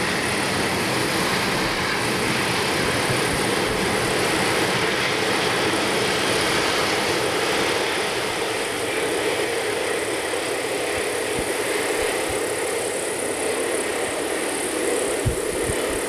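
Freight train of tank wagons rolling past: a steady rumble and rush of wheels on rails, easing off slightly in the second half.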